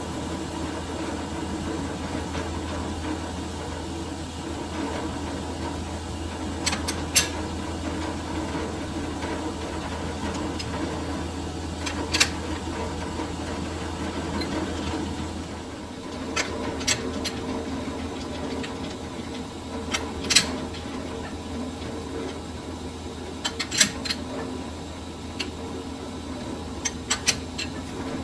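Metal lathe running steadily with a machine hum. Sharp metallic clicks come singly and in small clusters, about a dozen in all. The hum's low part shifts slightly about halfway through.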